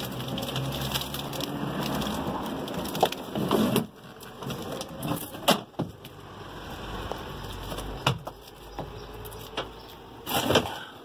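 Rotten wooden boat floor with its fiberglass layer being torn up off the stringers: crunching and splintering, then several sharp cracks and knocks as the sheet breaks loose.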